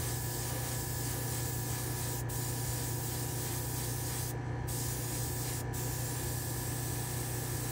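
Small gravity-feed spray gun hissing steadily as it sprays paint onto a diecast truck cab, over a steady low hum. The hiss stops for a moment three times as the trigger is let off.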